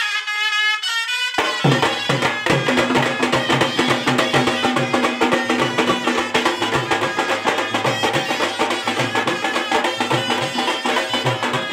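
Khalu baja folk band: a wind instrument plays a melody, and about a second and a half in, strapped barrel drums come in with a fast, steady beat under it.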